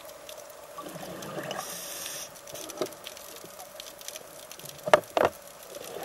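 Underwater sound on a scuba dive: a short hiss of the diver's regulator about one and a half seconds in, bubbling, and two sharp clicks about five seconds in, over a faint steady hum.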